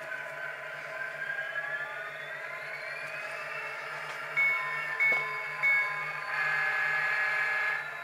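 Sound-decoder locomotive sounds from an N-scale SD80MAC model's Tsunami decoder, heard through its small onboard speaker: a diesel engine drone that rises in pitch as it revs up, then the horn sounding three short toots and one long blast.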